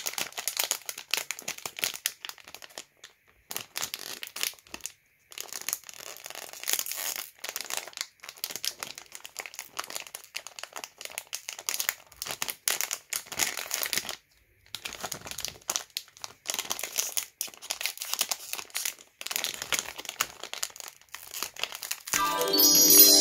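Thin plastic wrapper of an individually wrapped gummy candy crinkling as fingers squeeze and pull at it, in irregular crackles with a few short pauses. Near the end, music with a plucked guitar comes in.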